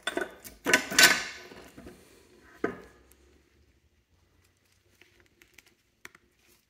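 Metal clunks and a scraping clatter as the steel intermediate shaft and its helical gears knock against the transfer-case housing while being worked loose and lifted out. The clatter is loudest in the first second or so, one more knock comes about two and a half seconds in, and a few faint light ticks follow near the end.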